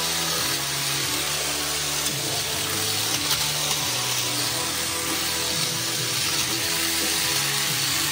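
Crush Gear toy battle cars running in their arena: their small electric motors and gears make a continuous high whirring hiss as the wheels scrub the arena floor, with a sharp knock about three seconds in.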